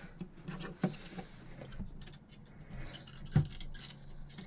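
A hand working a fuel pump assembly into place inside a car's fuel tank: soft handling and rubbing sounds with a few light knocks, the sharpest about three and a half seconds in.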